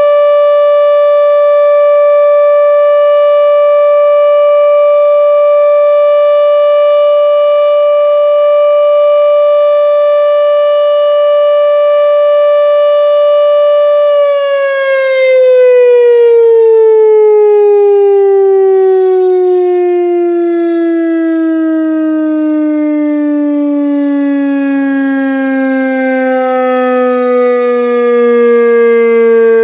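Federal Signal RSH-10B electromechanical outdoor warning siren sounding during a test. It holds a steady tone for about the first half, then winds down, its pitch falling steadily for the rest.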